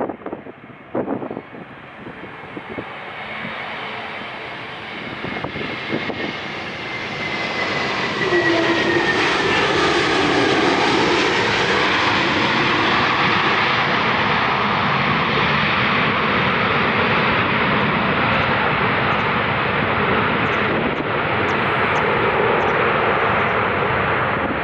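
Jet airliner passing close: engine noise builds over the first several seconds, a whine falls in pitch as it goes by about eight seconds in, and a loud, steady jet noise follows.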